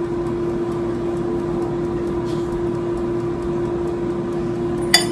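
Air fryer running with a steady fan hum while it cooks, and one sharp clink near the end.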